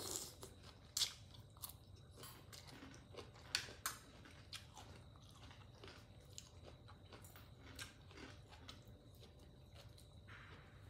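Close-up chewing of a mouthful of crunchy shredded green mango salad, with sharp crunches that are loudest in the first four seconds and then thin out.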